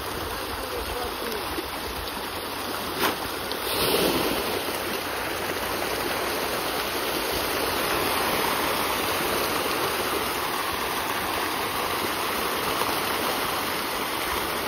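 Dense school of farmed fish thrashing at a pond's surface in a feeding frenzy, a continuous rushing churn of splashing water. A single sharp knock comes about three seconds in, followed by a louder surge of splashing.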